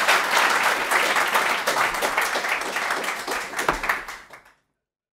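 Audience applauding, the clapping thinning out and fading to silence about four and a half seconds in.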